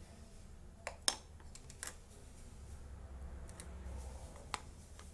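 A few sharp clicks and taps as the RC excavator's swing bearing is handled and set onto the tracked chassis, the loudest about a second in and another near the end.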